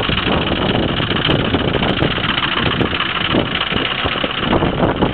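2007 Ford F350's 6.0 L Power Stroke V8 turbodiesel idling steadily on a cold start, still at low idle before its cold-start high idle kicks in. It is noisy, as the 6.0 typically is when started cold.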